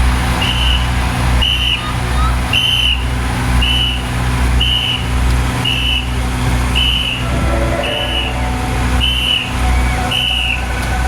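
A vehicle's high electronic beeper sounding a short beep about once a second, like a reversing alarm, over the steady low running of a truck engine.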